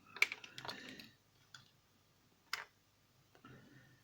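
Small plastic parts being handled: a cluster of light clicks and taps in the first second, then a single sharp click about two and a half seconds in.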